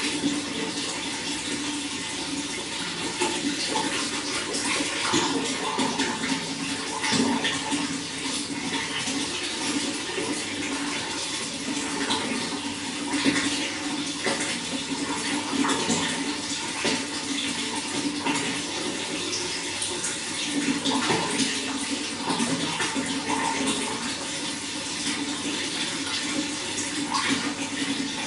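Running water flowing steadily, with constant small splashes and gurgles.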